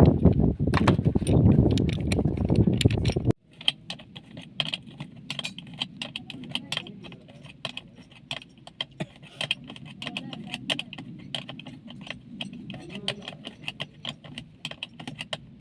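Loud rough noise for the first few seconds, cut off abruptly, then a run of small irregular clicks and clinks from tools and pipe fittings being handled during plumbing work.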